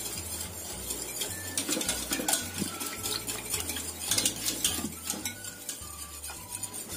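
Wire whisk stirring a thin coconut-milk mixture in a stainless steel pot, its wires scraping and clinking irregularly against the pot's sides and bottom.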